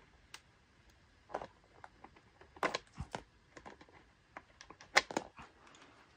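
HDMI and USB cable plugs being pulled from the ports of a mini PC, with hands handling the unit: a scatter of light clicks and knocks, the loudest ones near the middle and about five seconds in.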